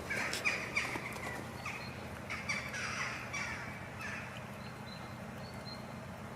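A bird calling, a run of short falling calls in quick succession over the first three or so seconds, then dying away.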